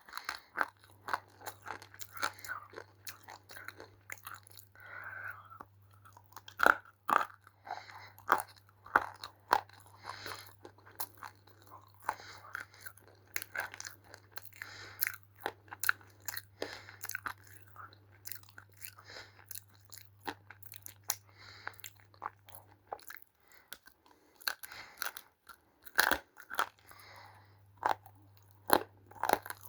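Crunching and chewing of roasted Multani mitti (fuller's earth clay) close to the microphone: sharp, irregular crunchy bites between quieter chewing.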